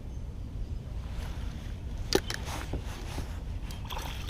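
Clicks and knocks of handling in a kayak over a steady low wind rumble on the microphone. The clicks start about a second in, and the sharpest comes about two seconds in.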